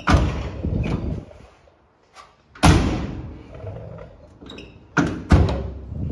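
Steel passenger door of a 1957 VW Oval Beetle being slammed shut and worked at its push-button handle, giving four loud bangs, the last two close together. The door is being tested to see whether it latches with parts taken from other doors.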